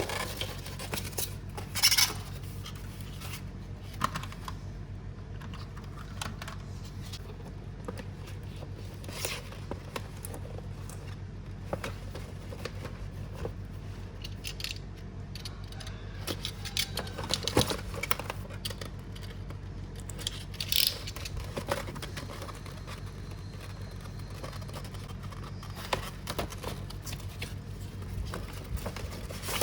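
Hands unboxing a diecast model car: scattered clicks, scrapes and rustles of cardboard and plastic packaging, louder in a few spots, over a steady low hum.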